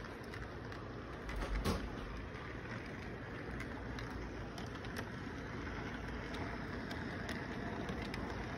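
Model train cars rolling past close by: a steady rumble from the wheels and motor, with irregular clicks of the wheels over the track joints and one louder knock about one and a half seconds in.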